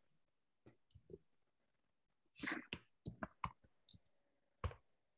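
Faint clicks of computer keyboard keys as a short word is typed: about eight separate keystrokes at uneven spacing, most of them in the second half. A brief rush of noise about halfway is the loudest moment.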